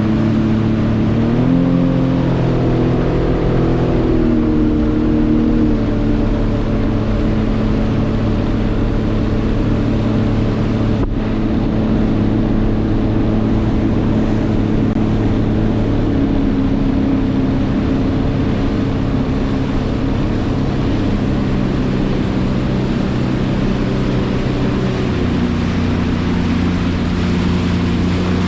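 Jet ski engine running steadily under way. Its pitch rises a second or two in and changes a few more times, over a rushing haze of noise, with a single short click about eleven seconds in.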